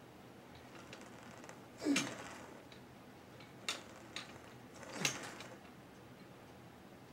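A lifter's strained grunts with forceful exhales during shoulder-training reps, twice, about three seconds apart, each dropping in pitch. Two short, light clicks fall between them.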